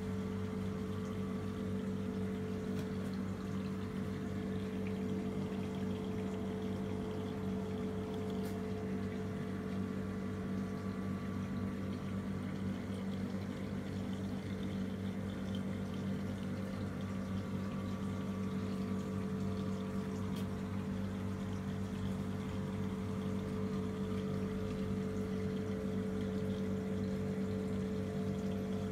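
Reef aquarium's water pumps running with a steady low hum, under an even rush of circulating water.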